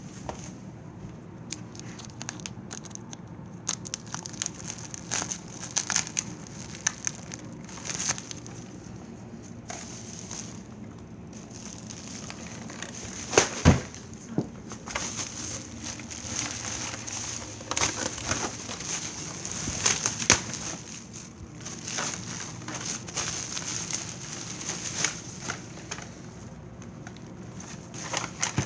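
Plastic packaging crinkling and rustling in irregular crackly bursts with scattered clicks as a Dyson vacuum is cut and pulled out of its bag, with one sharp knock about halfway through.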